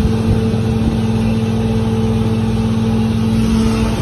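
Fishing boat's engine running steadily at a constant pitch, under a dense hiss of wind and sea.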